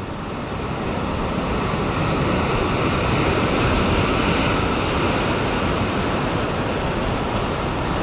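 Ocean surf washing and breaking over sea rocks, a steady rush of whitewater that grows a little louder over the first few seconds.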